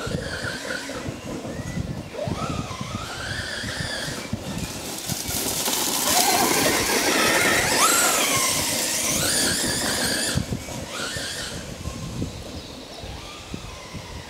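The brushless motor and drivetrain of an FG Marder RC buggy (Tenshock 501S on 6S) whine as the car speeds up and slows, the pitch rising and falling over and over, with tyre and ground noise beneath. It is louder from about six to ten seconds in.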